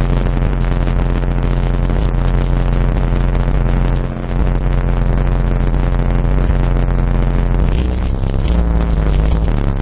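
Bass-heavy music played loud through a Sound Splinter RL-p 12-inch subwoofer in a ported enclosure tuned to 32 Hz, with sustained deep bass notes dominating. There is a brief dip about four seconds in, and the bass pattern changes near eight seconds.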